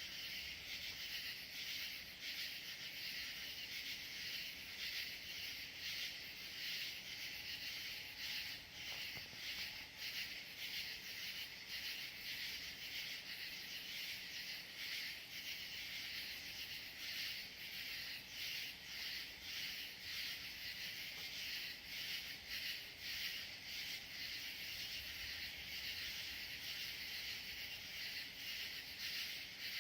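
Steady chorus of chirping insects, a dense high-pitched pulsing trill that carries on without a break.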